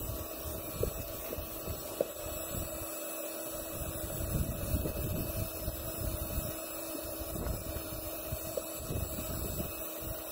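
Wind buffeting the microphone in uneven gusts, over the strokes of a hand pump pushing air into an inflatable kayak. A faint steady hum runs underneath.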